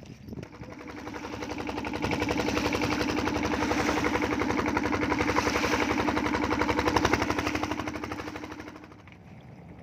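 A motorboat's engine running with a fast, even chugging beat, growing louder over the first two seconds, holding, then fading away near the end as the boat passes close by.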